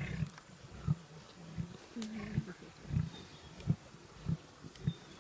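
Lions feeding on a waterbuck carcass: a run of low growls, evenly spaced about every two-thirds of a second, with a few sharp clicks of meat and bone being torn.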